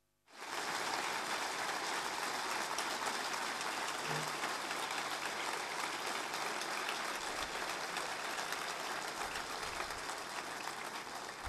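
Audience applauding: a dense, even clapping that starts suddenly just after the start and holds steady, thinning out near the end.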